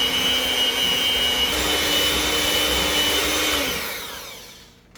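Electric hand mixer running steadily, creaming butter and sugar in a mixing bowl, with a motor whine that steps up slightly in pitch about a second and a half in. The sound fades away near the end.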